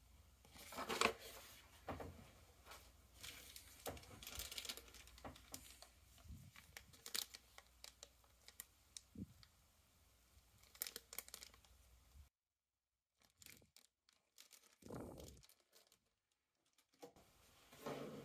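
Paper and a plastic zip bag being handled, crinkling and rustling in irregular bursts. About twelve seconds in the sound drops to near silence, broken by a few short handling noises, with rustling again near the end.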